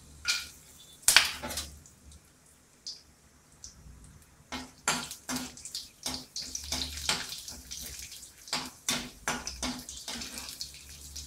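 Cashew nuts sizzling in hot oil in a nonstick kadai while a spatula stirs them, with frequent irregular scrapes and taps against the pan. The sharpest knock comes about a second in.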